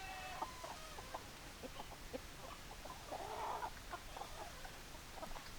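Chickens clucking: many short clucks throughout, opening with the end of a longer held call and with a harsher, rougher call about three seconds in.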